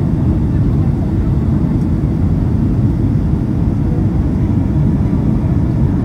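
Steady low rumble of an airliner's engines and rushing air, heard from inside the passenger cabin during descent.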